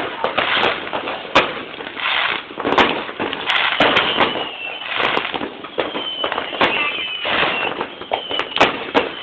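Aerial fireworks going off: a dense run of bangs and crackling shell bursts, with a few falling whistles.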